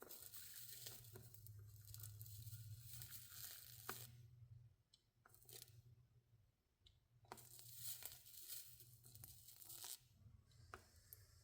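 Hot soldering iron melting solder along a stained-glass seam, the gel flux sizzling and crackling in two stretches of a few seconds each, with a few sharp ticks, over a low steady hum.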